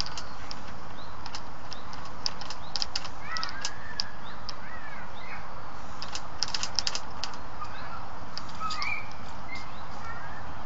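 Small birds chirping over a steady outdoor hiss, with scattered short clicks that bunch up about a third of the way in and again just past the middle.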